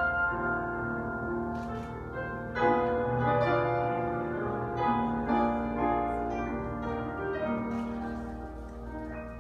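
Piano playing the slow closing bars of a ballad, sustained notes and chords ringing, with a fresh chord struck about two and a half seconds in and the sound dying away near the end.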